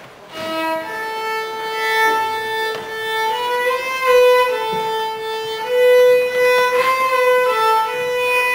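Solo violin playing a slow melody of long held notes.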